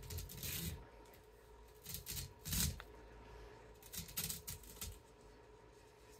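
Rustling and scraping from handling an old window screen as its mesh and spline are worked out of the frame, in three short bursts.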